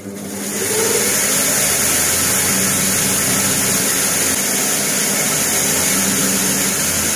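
Electric feed-crushing machine switched on, spinning up over about a second and then running with a loud, steady hum and whir. Its chamber is choked with feed, most likely filled up while feed was being put in, so it will not grind until it is opened and emptied.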